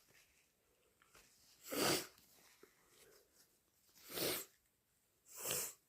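Three short, sharp, breathy bursts of air from a person between sneezes, the first about two seconds in and the others a second or so apart near the end.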